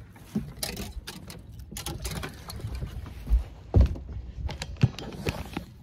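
Irregular clicks, knocks and a few heavier thumps of fishing gear being handled and a person moving about in a small fishing boat, over a low rumble. The loudest thumps come a little before and after the middle.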